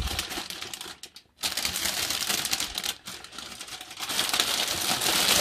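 Thin clear plastic bag crinkling and crackling as a cat shifts inside it and a hand strokes it through the plastic. It stops briefly about a second in, then goes on and grows louder near the end.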